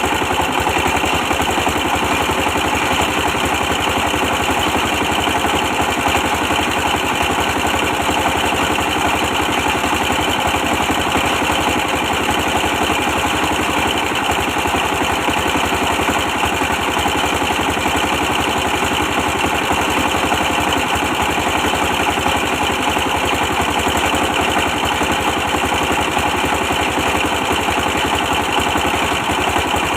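An old 24 hp diesel engine running steadily with a fast, even beat, powering a brick press.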